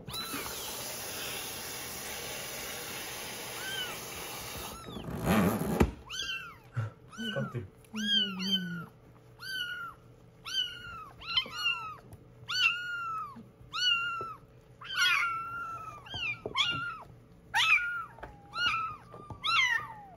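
Running water splashes for about five seconds, then young kittens mew over and over, short rising-and-falling high cries about one or two a second, sometimes overlapping, while they are being shampooed in the bath.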